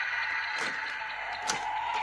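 DX Ziku-Driver toy transformation belt, with the Ex-Aid Muteki Ridewatch loaded, playing its steady electronic standby loop through its small speaker. Two sharp plastic clicks about half a second and a second and a half in, as the belt is unlocked and starts to rotate for the transformation sound.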